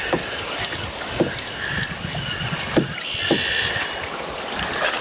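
Handling noise on a fishing kayak while a small bass is brought in: scattered light knocks and clicks over a steady wash of water and movement.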